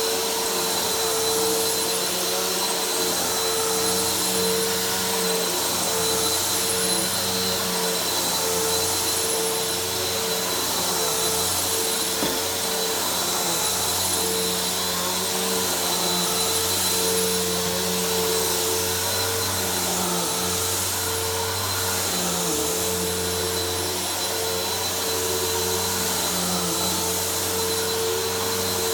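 Vacuum cleaner running steadily as it is worked over the floor: a constant motor hum and whine. A faint high squeak comes and goes every second or two; the user hears it as a squeaky wheel and thinks the vacuum may be on the wrong setting for this floor.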